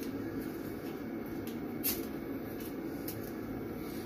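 A few light clicks from a Leaf razor as half double-edge blades and the blade bars are seated in its head, the sharpest about two seconds in, over steady room noise.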